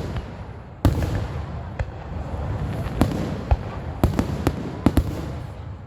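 Fireworks going off: a string of sharp bangs and pops at irregular intervals over a low rumble. The loudest bang comes about a second in, and a quick cluster follows in the second half.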